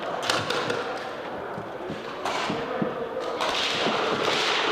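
Airsoft guns firing in several rapid bursts of sharp clicks, echoing in a large hall.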